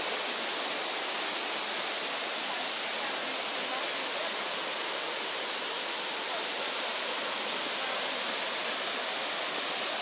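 Steady rush of water from a waterfall and its river: an even, unbroken hiss.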